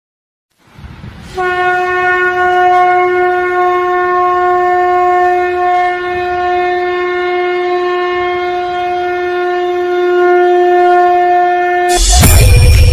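Conch shell (shankh) blown in one long, steady note lasting about ten seconds. Near the end it cuts off as loud music with a heavy bass comes in.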